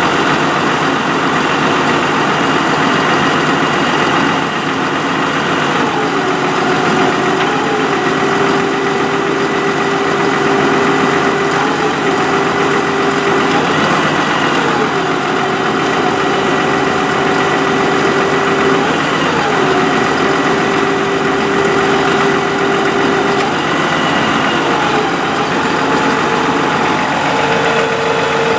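Dodge 5500 bucket truck's 6.7-litre Cummins turbo-diesel running with the PTO engaged to drive the Altec boom hydraulics. A steady whine rides on the engine, stepping down and back up in pitch several times as the boom is worked.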